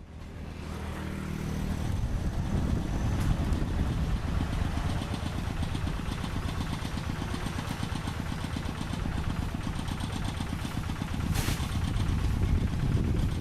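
Diesel engine of a Quick G3000 Zeva two-wheel hand tractor running steadily with a rapid, even beat. It fades in over the first second or two, and a brief hiss comes about eleven seconds in.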